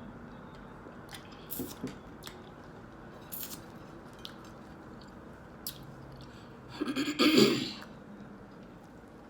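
Chewing a breakfast sandwich close to the microphone: a few wet mouth clicks and smacks, then a loud throat clearing lasting about a second, about seven seconds in.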